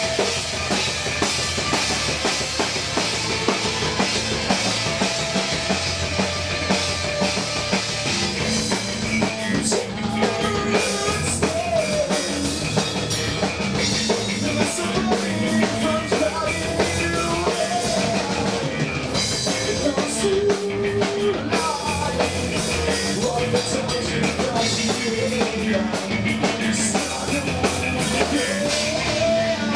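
Live rock band playing a song, with a full drum kit and cymbals driving it and electric guitar over the top.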